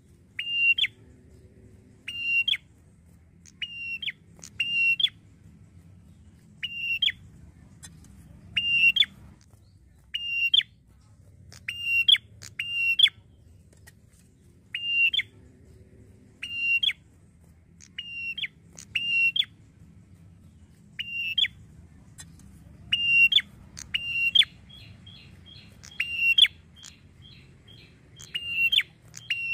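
Tailorbird (prenjak) calling loudly: a sharp, high note repeated about once a second, often in quick pairs. Near the end, a fainter rapid ticking trill joins in.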